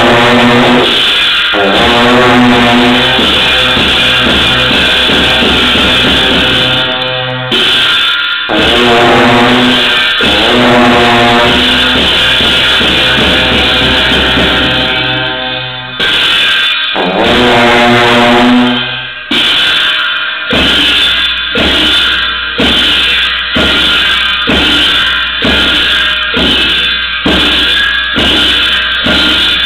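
Tibetan monastic music for a cham masked dance: long held, wavering tones over drum and cymbals, breaking off every few seconds. About two-thirds of the way in it gives way to a steady beat of drum and cymbal strokes, a little over one a second.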